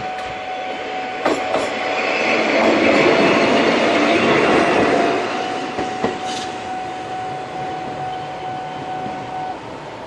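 Eizan Electric Railway level-crossing warning bell ringing on one steady tone while a train runs over the crossing, loudest about two to five seconds in, with a few wheel clacks over rail joints. The bell stops shortly before the end as the train clears.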